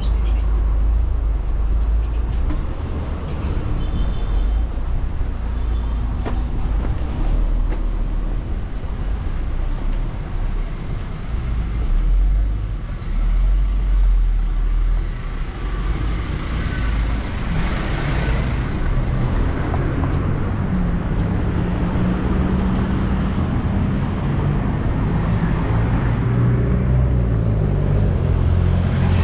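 Street traffic: motor vehicles passing on a city road with a steady low rumble. About two-thirds of the way in, a closer engine is heard running and stays to the end.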